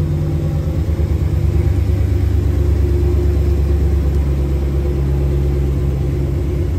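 A 2018 Ram 1500 Sport's 5.7-litre Hemi V8 idling steadily after a cold start, with a deep, even exhaust rumble.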